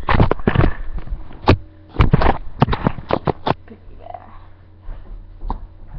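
Camera handling noise: a quick run of knocks, bumps and rustling scrapes as the camera is carried and set down on the floor, settling after about three and a half seconds into a quieter stretch with a faint steady hum and one more click.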